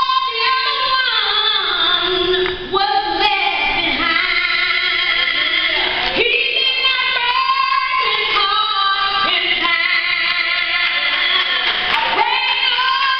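A woman singing a slow gospel song solo, with long held notes that waver in pitch.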